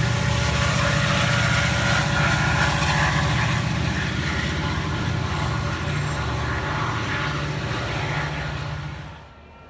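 EMD F40PH diesel locomotive working under throttle as it moves off with its commuter train, a steady heavy low engine rumble with wheel and rail noise, easing as it recedes and falling away sharply near the end.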